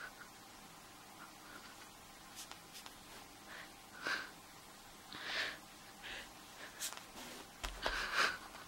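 Cat's paw swatting a small plastic toy dinosaur on a fabric sofa cushion: soft scuffs and rustles, a few scattered ones and then a louder cluster near the end as the cat reaches the toy.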